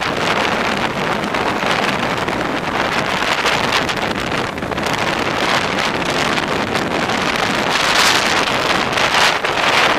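Snowmobile running at speed along a trail, its engine under heavy wind noise on the microphone; the rush grows louder about eight seconds in and again near the end.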